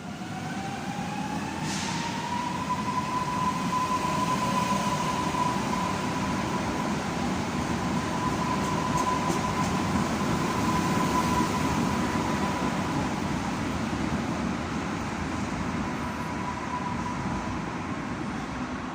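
Train moving along the station tracks: a steady running rumble with a clear whine that rises in pitch over the first two seconds, then holds steady and fades near the end.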